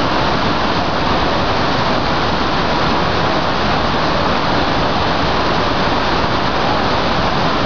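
Iguaçu Falls: the steady, loud rush of a huge waterfall, an unbroken roar of falling water.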